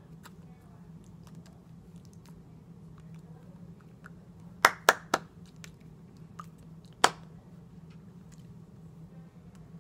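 Hands slapping together sharply while signing: three quick slaps about halfway through and one more a couple of seconds later. Faint small clicks from hand and clothing movement sound over a steady low hum.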